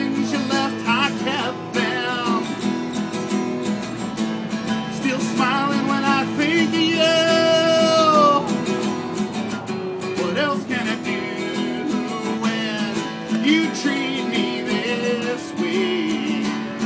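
A man singing to a strummed acoustic guitar. About seven seconds in he holds one long note that drops slightly as it ends.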